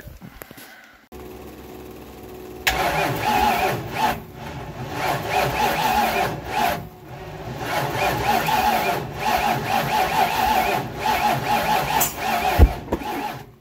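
Engine of a modified pulling tractor being cranked by its starter in several long bursts with short pauses between them, turning over slowly on a weak battery without catching. Near the end there is one sharp bang, a backfire, which the owner takes as a sign that it has spark.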